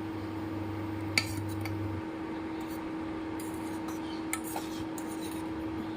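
A few light clinks of a spoon against a pan of milk cooking on the stove, over a steady hiss and hum.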